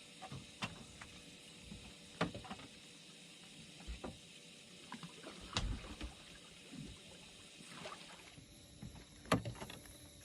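Water splashing and scattered knocks around a small boat as a large catfish is released over the side, with the loudest splash or knock about a second before the end.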